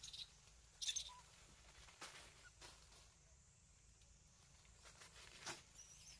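A young macaque's hands and feet scratching and scrabbling on tree bark as it climbs, a few short scrapes in near silence, the loudest about a second in.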